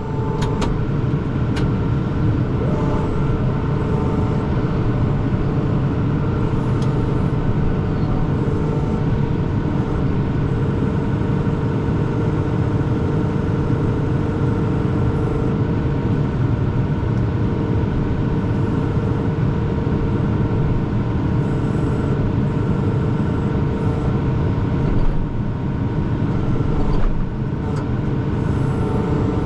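Kubota M5-111 tractor's four-cylinder diesel engine running steadily under way, with a couple of brief clicks about a second in.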